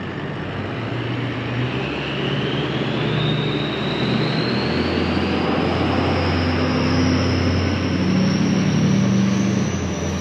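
Engine noise with a thin whine that rises slowly in pitch, growing a little louder over the seconds.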